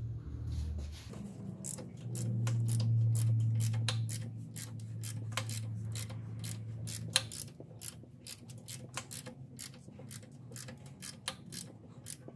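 Ratchet on the crankshaft bolt turning a Coyote V8 over by hand to check the newly installed timing chains and gears: a steady run of sharp clicks, about three or four a second. A low steady hum runs under the first half.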